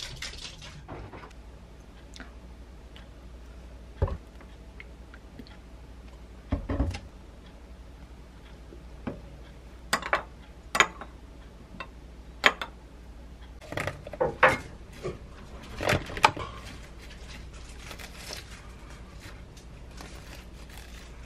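A metal spoon clinking against a small glass bowl as a sauce is stirred, in scattered sharp clicks, most of them between about ten and sixteen seconds in. Two duller knocks come earlier.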